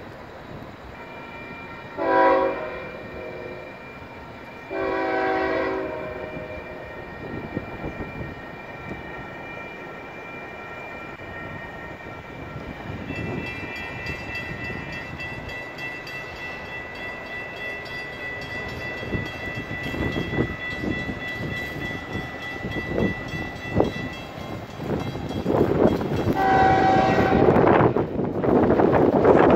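Florida East Coast Railway locomotive air horn blowing for a grade crossing with the train not yet in sight. A short blast comes about two seconds in and a longer one around five seconds, then another blast near the end. Between them a steady high ringing tone is heard, and a rising rush of noise builds as the train draws near.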